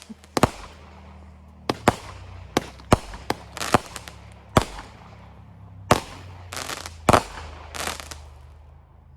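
Consumer fireworks going off: a string of sharp bangs at irregular intervals mixed with short crackling bursts, stopping about eight seconds in.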